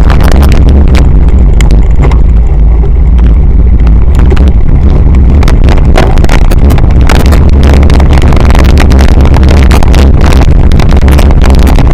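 Loud, steady wind buffeting on an action camera's microphone as a cyclocross bike is ridden over a grass course, with many quick knocks and rattles from the bike and camera mount bouncing over rough ground.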